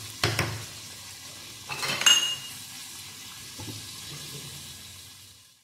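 Metal spoon stirring chicken and yogurt in an enamelled pot over a low sizzle, with two sharp clanks of the spoon against the pot: one just after the start and a louder, ringing one about two seconds in. The sound fades out near the end.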